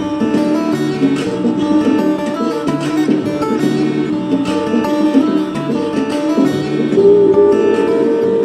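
Background music led by plucked guitar-like strings, with a long held note near the end.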